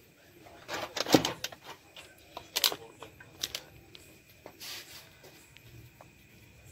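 Fried noodles tipped and spread into aluminium foil takeaway trays with a metal serving spoon: scattered short scrapes, taps and foil crackles, the loudest about a second in.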